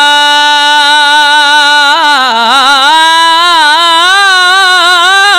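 Solo male voice singing an Urdu naat without instruments. He holds one long note, breaks into a run of wavering ornaments about two seconds in, then settles into another held note.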